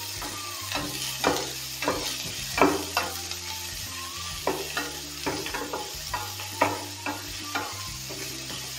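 Freshly added sliced onions sizzling in hot ghee with whole spices, while a wooden spatula stirs and scrapes them around a coated frying pan in short, repeated strokes about twice a second.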